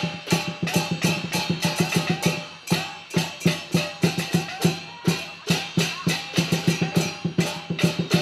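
Fast percussion music accompanying a dragon dance: rapid drum strikes with wood-block-like clacks, about four to five a second, easing briefly about two and a half seconds in.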